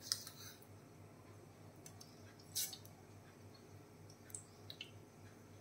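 A few faint clicks and taps over a low steady hum: one right at the start, a stronger one about halfway through, and a few small ones near the end.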